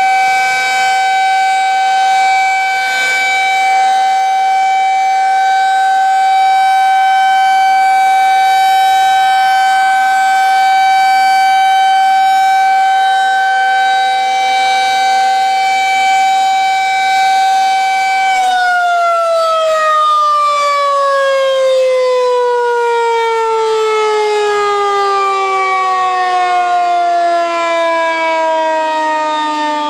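Federal Signal 2001 electromechanical tornado siren sounding its steady alert tone during a test. About 18 seconds in, it begins to wind down, its pitch falling smoothly and continuing to drop.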